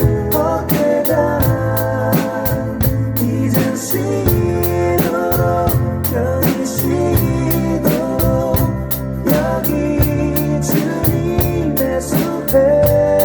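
Drum kit played along to a recorded Korean worship song with a singer and band; steady cymbal or hi-hat ticks keep the beat under the vocal line.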